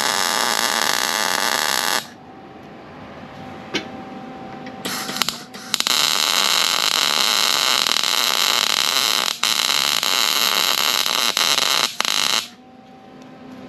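MIG welder tack-welding a steel frame: the arc runs steadily for about two seconds at the start, blips briefly twice around five seconds in, then runs again for about six and a half seconds, a little more than a tack, stopping near the end.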